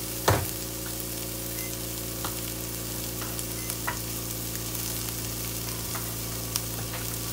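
Broccoli, onions and garlic sizzling steadily in a nonstick skillet, with a steady low hum underneath. There is a single sharp knock just after the start.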